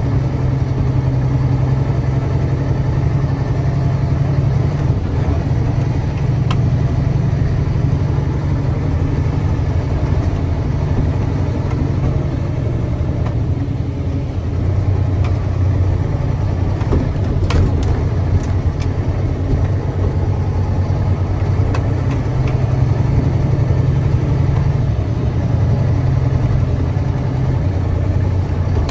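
Mack Granite truck's diesel engine running steadily, its speed dipping and picking up again a couple of times, with a few faint clicks a little past halfway.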